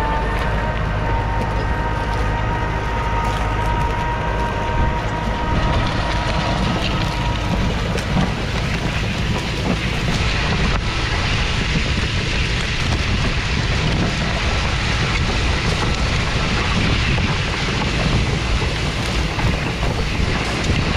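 New Holland T7.225 tractor's 6.7-litre six-cylinder diesel working under load, pulling a Lemken five-furrow reversible plough: a steady low rumble with a high whine over it for the first six seconds or so. After that, the hiss and scrape of soil sliding over the plough's mouldboards comes to the fore, with wind on the microphone.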